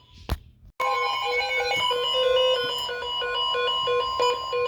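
A click, then about a second in a loud, steady electronic alert tone near 1 kHz begins. A quick pattern of electronic beeping notes, about four a second, plays over it.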